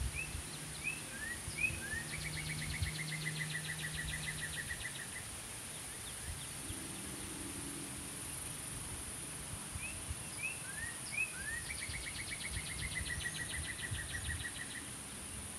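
A songbird sings the same song twice: a few short rising chirps, then a fast trill. Underneath is a steady, high-pitched drone of insects.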